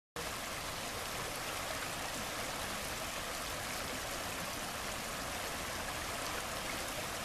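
River water rushing steadily over a shallow riffle, a continuous hiss-like rush that cuts in abruptly at the start.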